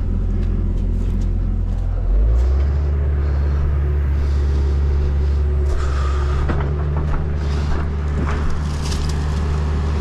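Excavator's diesel engine running steadily, its revs stepping up about two seconds in, with a few light knocks and scrapes over it.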